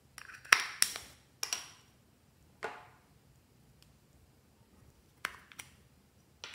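Small plastic cosmetic cases being snapped open and shut by hand: a string of sharp plastic clicks, several close together near the start, then single snaps spaced a second or more apart.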